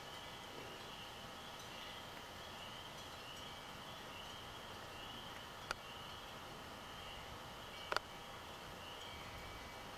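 A faint, steady, high-pitched outdoor chorus of calling animals, pulsing a little faster than once a second, over a background hiss. Two short, sharp knocks come about six and eight seconds in.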